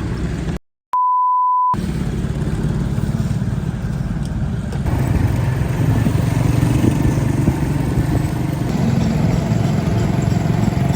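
A brief dropout to silence, then a single steady pure beep tone lasting under a second, like an edited-in censor bleep. After it, a vehicle engine and traffic rumble run on, growing a little louder about five seconds in.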